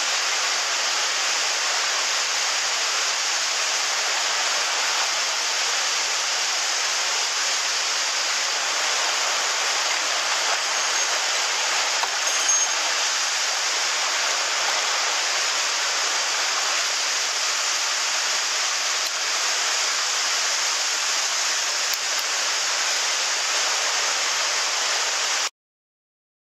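Steady rush of water in a rocky mountain stream, with one brief click just past halfway; it cuts off suddenly about a second before the end.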